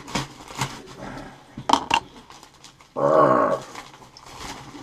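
Plastic packaging being handled and pulled open, with crinkles and clicks in the first two seconds. A short, loud growl about three seconds in, lasting about half a second and dropping slightly in pitch.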